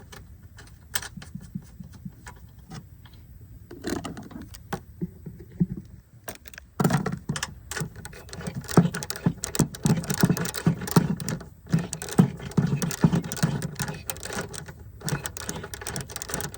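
Small metal parts and tools being handled: irregular clinks and rattles, sparse at first and then dense and busy from about seven seconds in.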